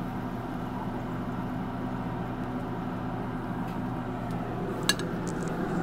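Steady low mechanical hum from the Pit Boss pellet smoker's fan, which is still running at its low setting. A single short click comes about five seconds in.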